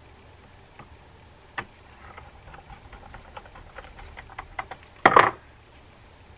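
Faint metallic clicks and small scrapes of a screwdriver turning short screws into the side plate of an Ocean City 6051 reel, with a quick run of light ticks in the middle. A little after five seconds in there is one brief, louder clatter, as of the screwdriver set down on the wooden bench.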